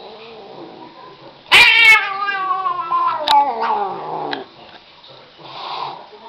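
A domestic cat lets out one long yowl about a second and a half in. It starts loud and slides steadily down in pitch over nearly three seconds, and a short softer sound follows near the end.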